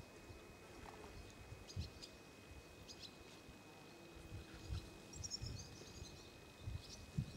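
Quiet outdoor ambience: a few faint, high bird chirps, with a short twittering run about five seconds in, over low rumbles and bumps.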